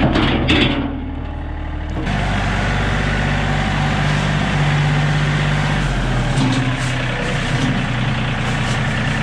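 John Deere 3025E compact tractor's three-cylinder diesel engine running steadily, with its note dropping about six seconds in. A few thumps in the first second as beaver carcasses tumble out of the loader bucket.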